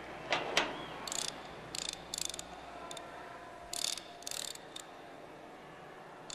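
Combination lock on a metal school locker being dialled: two louder clacks in the first second, then several brief bursts of ratchety clicking as the dial is turned.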